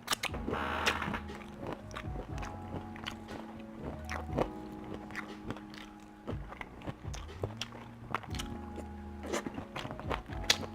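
A person biting and chewing breakfast food (pancakes, eggs, bacon) close to the microphone, with sharp clicks scattered throughout. Background music with long held tones plays underneath.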